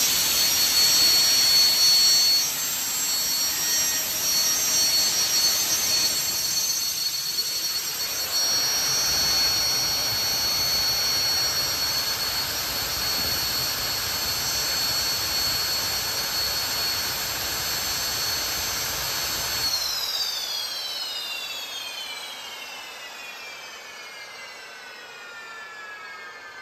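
Freshly overhauled Lycoming T55-L7C turboshaft engine running on a test stand: a steady rushing roar with a high whine. About 20 seconds in the roar drops away and the whine falls steadily in pitch as the engine spools down after shutdown.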